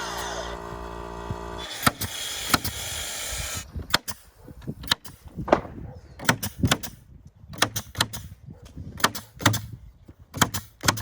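A steady motor hum gives way to a hiss a few seconds in, followed by a long run of sharp, irregular knocks and taps from work on the wooden fence as the pickets are fastened.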